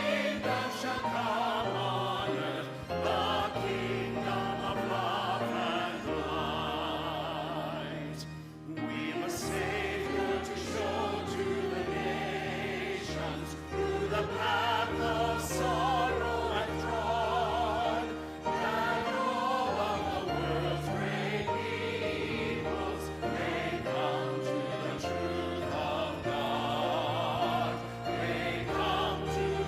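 Church choir singing a sacred anthem with vibrato over sustained low accompanying notes, with a brief pause between phrases about eight seconds in.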